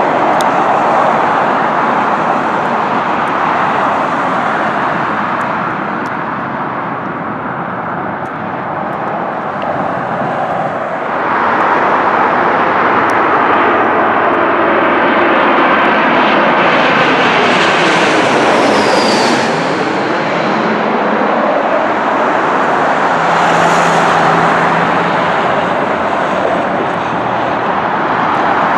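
Jet airliners on final approach: first a Boeing 737's engines running as it heads away toward the runway, then, after an abrupt change about a third of the way in, an Airbus A321 coming in low overhead, its jet whine building and dropping in pitch as it passes, about two-thirds of the way through.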